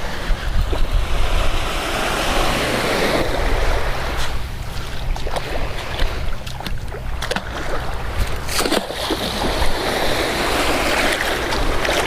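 Waves breaking and washing up a beach, swelling and easing, with wind buffeting the microphone and a few brief clicks.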